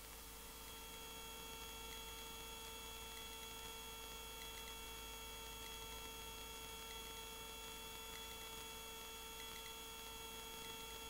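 Faint steady hum with several thin whining tones, unchanging: the Cabri G2 helicopter's noise as it comes through the intercom audio, with no speech on the line.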